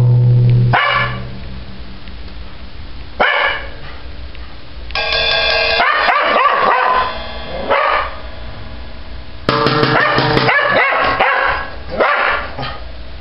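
A drum on a drum kit struck once at the start, ringing briefly, then a dog barking at the drums: single barks and two longer runs of rapid barks.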